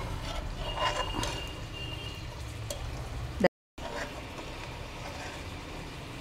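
Chicken pieces frying gently in hot ghee in a wok, a soft steady sizzle, with a few light clinks of utensils against the pan in the first couple of seconds. The sound cuts out completely for a moment about halfway through.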